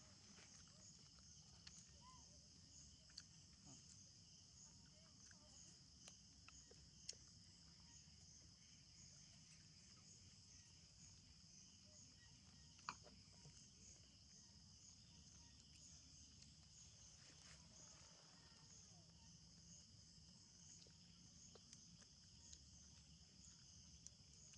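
Faint, steady high-pitched chirping of insects, pulsing evenly, with a few soft clicks, the sharpest about 13 seconds in.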